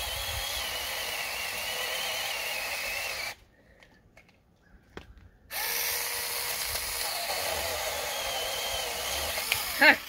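Foonsen 21V mini battery chainsaw cutting a branch: the small electric motor whirs under load, stops about three seconds in, and starts again about two seconds later, cutting on until the branch comes free. A brief, loud sound comes near the end.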